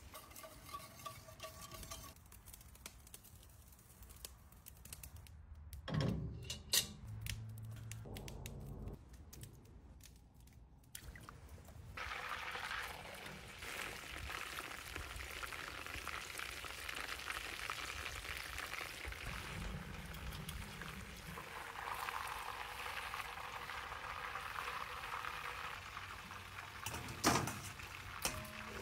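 Chicken wings deep-frying in hot oil, a steady sizzle that starts about twelve seconds in and runs on. Before it there are quieter handling noises with a few sharp knocks, and one sharp knock comes near the end.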